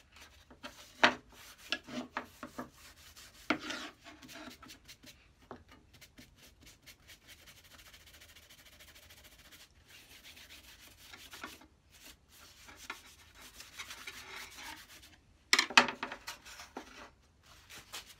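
Cloth rubbing Danish oil into the wooden handle of a sliding bevel gauge: on-and-off scratchy rubbing and rustling. A few sharp knocks break in, the loudest near the end, as the gauge is handled against the wooden board.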